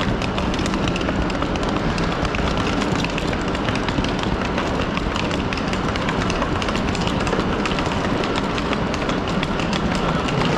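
Steady din of a covered railway platform, with parked electric trains' running equipment humming under the echoing roof.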